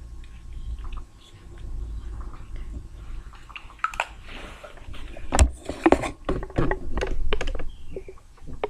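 Close handling noise with a low rubbing rumble, then from about four seconds in a run of sharp clicks and wet smacks from lips pressing together on freshly applied lipstick.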